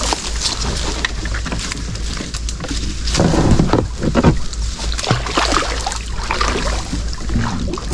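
Water sloshing and splashing around a small boat, with scattered knocks and clatter from handling the fish traps.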